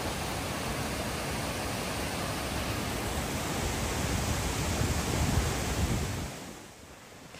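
Steady rushing of a waterfall tumbling over boulders, fading down about six seconds in.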